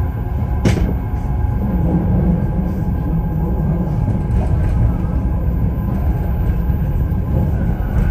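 Copenhagen Metro train running underground, heard from inside the car: a steady low rumble with a constant whine of several tones. About a second in there is a single sharp clack from the wheels over the track.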